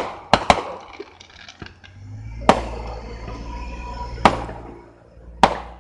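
Fireworks going off: a quick run of three sharp bangs, then single bangs about two and a half, four and five and a half seconds in, each trailing off. A low rumble runs under the middle bangs.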